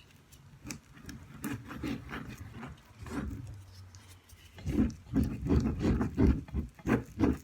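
Sticky slime of glue and Gain detergent being squished and mixed, with small wet clicks and squelches. These turn into a faster, louder run of squishes about halfway through as the slime clumps together.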